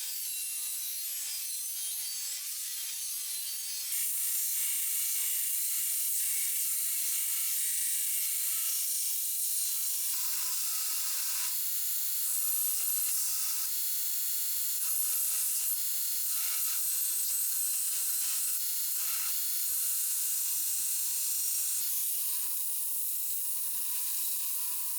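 Power grinder grinding a leaf-spring steel blade blank to shape: a steady high abrasive hiss with a faint whine under it. It changes abruptly in level and tone several times, first stepping up about four seconds in.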